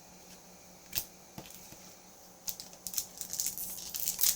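Foil booster pack wrapper crinkling and being torn open, with a couple of light clicks about a second in and the crackling growing louder from about halfway.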